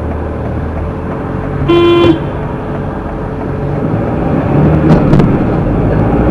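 A car horn sounds once, a short toot of about half a second, about two seconds in, over the steady running noise of a car on the road.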